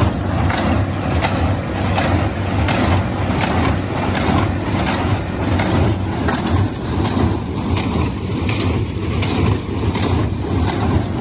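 Tractor engine running steadily while pulling a small square hay baler, with the baler's plunger thumping about one and a half times a second as it packs hay into bales.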